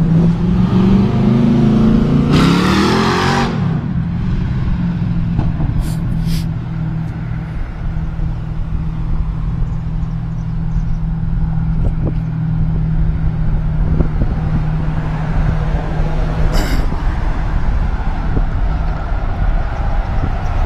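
Street noise heard from a moving Segway Mini: wind and rolling noise with a steady low hum that rises in pitch over the first few seconds, then holds level until about three quarters of the way through. A vehicle goes by with a brief loud whoosh about two to three seconds in.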